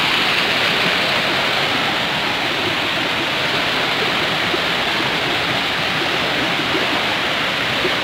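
Shallow rocky stream running steadily over stones and small cascades, a constant rush of water.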